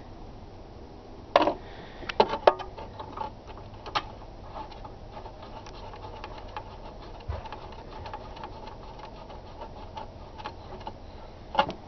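NGK BR9ES spark plug being threaded by hand into the cylinder head of a 1978 Arctic Cat Pantera's two-stroke engine: small metallic clicks and ticks, with a few sharper clicks around two seconds in and one more near the end.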